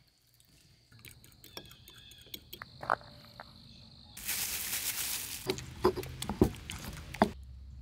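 Small splashes and clicks of a hand swishing sticky rice in a bowl of water, over a thin steady chirp of crickets. Then a loud burst of hiss from a charcoal and wood fire. Then a stone pestle pounding tomatoes in a stone mortar, several heavy knocks.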